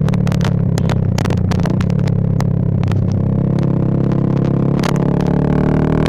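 Bajaj Pulsar 220F single-cylinder engine running through an aftermarket Race Concepts full exhaust, holding fairly steady revs while riding, with frequent sharp crackles on the sound.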